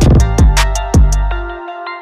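Electronic background music with deep bass notes that fade out after each hit, a beat of sharp percussion strikes and a synth melody.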